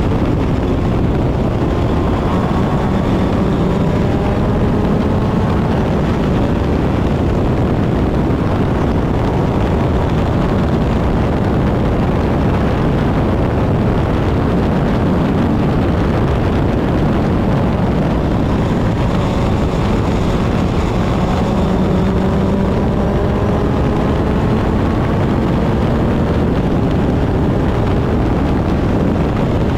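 Open-wheel race car's engine running hard at racing speed, heard from the cockpit over a loud steady rush of wind and road noise, its note rising and falling as the car accelerates and slows.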